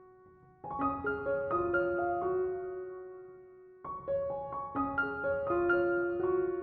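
Background music: a gentle solo piano playing phrases of notes that ring and fade out, with a pause before a new phrase begins about four seconds in.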